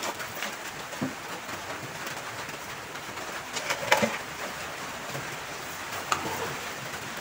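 Metal ladle stirring thick rice porridge in a large metal pan, knocking against the pan a few times, loudest about four seconds in.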